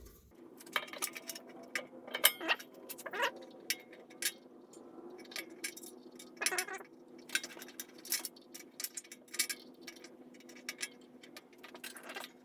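Small metal clinks and taps, irregular and scattered: a steel key and pulley being handled and fitted onto an electric motor shaft, over a faint steady hum.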